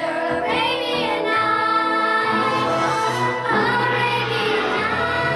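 A children's chorus singing a show tune over musical accompaniment, the voices holding long notes.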